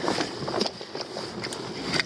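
Scattered short knocks and clicks, typical of stones and shells being handled on a rocky shore, over a steady hiss of wind.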